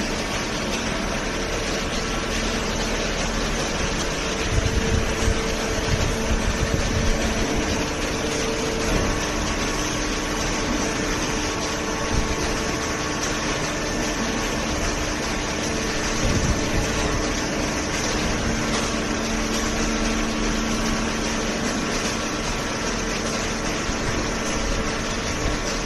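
Hydraulic vertical cardboard baler's pump and motor running with a steady hum and whine, with a few louder low knocks about four to seven seconds in and again around sixteen seconds.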